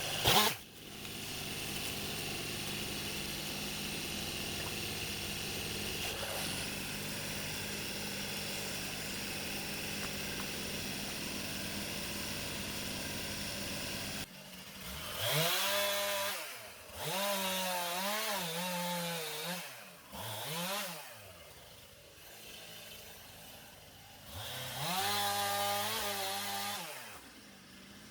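Chainsaw engine running steadily, then from about halfway revving up and down in four bursts, its pitch rising and falling with each, the last near the end.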